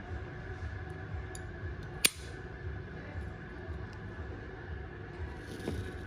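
A single sharp metallic click about two seconds in, typical of a Zippo lighter's lid snapping, over a steady low hum.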